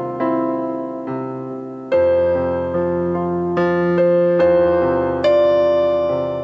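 Electronic keyboard on a piano voice playing a slow hymn accompaniment: full chords struck about once a second, each ringing and fading before the next.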